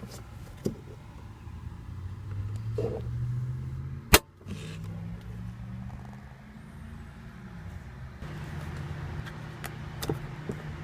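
Low steady hum of a 2014 Mercedes-Benz SL550 heard from inside the cabin, with one sharp click about four seconds in and a few lighter clicks.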